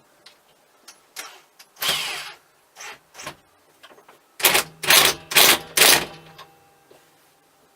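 Ratchet wrench tightening the steering-wheel hub nut: scattered clicks, then four quick ratcheting strokes in a row a little past halfway, with a faint ringing hum after them.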